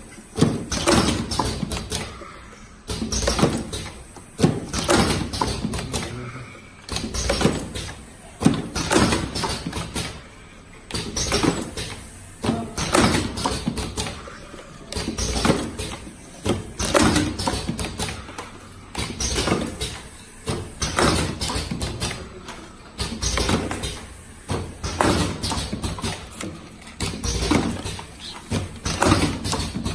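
Vertical automatic cartoning machine running, its turntable and carton-folding mechanism clacking and knocking in a repeating cycle, about once every one to two seconds.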